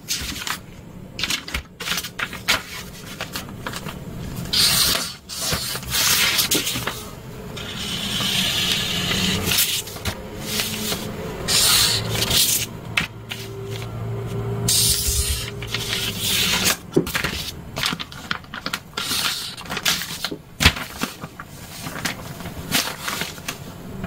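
Marker drawing lines on pattern paper along a ruler: repeated scratchy strokes of half a second to two seconds, with the wooden and plastic rulers clicking and knocking against the paper as they are moved and set down.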